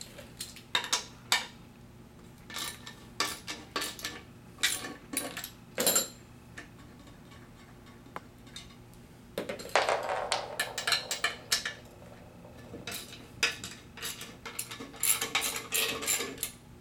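Irregular metallic clicks and clinks of a wrench working the bolts that hold a Collins 5550 hydraulic pump to a barber chair's steel base, with quicker runs of clicking about ten seconds in and again near the end.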